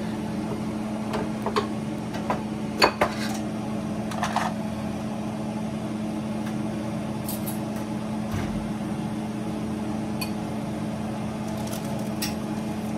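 A steady hum from a running appliance, with a few scattered clinks and knocks of kitchenware. The sharpest knock comes about three seconds in.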